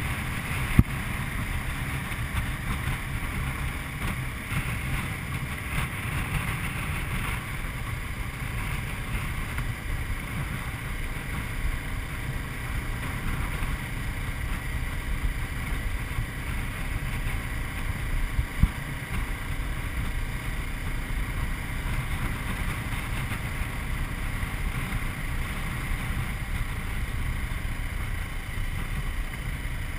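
Steady wind rush and rumble on the microphone with a Honda CBR250R's single-cylinder engine running beneath, recorded on the motorcycle while it cruises at road speed. Two brief sharp knocks, one about a second in and one about two-thirds through.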